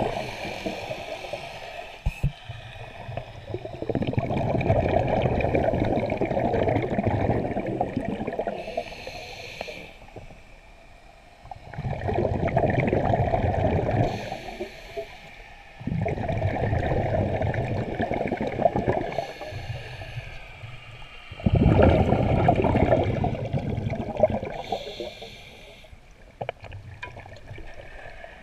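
Diver breathing through a scuba regulator underwater: exhaled air bubbling out past the camera in long spells about five times, each breath in heard as a short, high hiss through the regulator.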